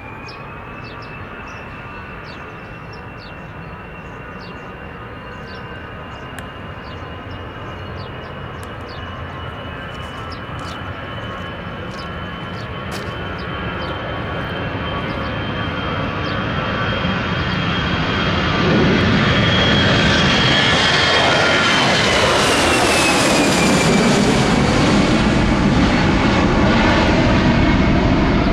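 Airbus A319 jet airliner taking off, its twin turbofan engines at takeoff power: a high fan whine over engine noise that builds steadily and is loudest from about two-thirds of the way in. The whine falls in pitch about three-quarters of the way in as the aircraft passes.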